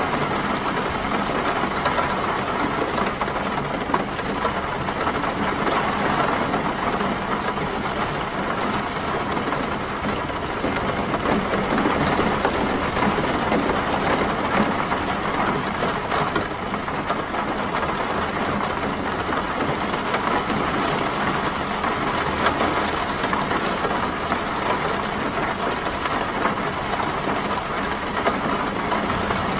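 Steady rain falling on a car, heard from inside the cabin as a dense, even patter.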